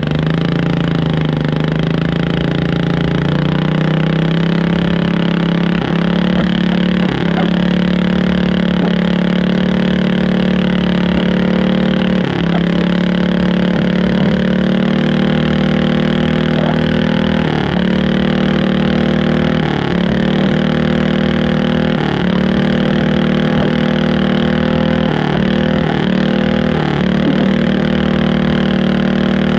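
A garden tractor's engine is running hard under load as it pulls a sled. Its pitch climbs over the first couple of seconds and then holds high and steady, with brief dips in pitch every few seconds that come more often near the end.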